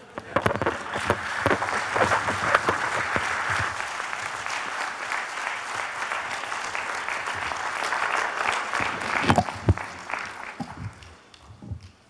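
Audience applauding, rising right at the start, holding steady and then dying away about ten seconds in, with a few thumps near the end as it fades.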